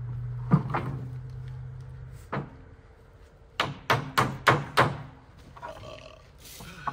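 Sharp knocks from work at a wooden trailer: two or three single knocks, then a quick even run of five, about three a second. A steady low engine hum underneath cuts off a little over two seconds in.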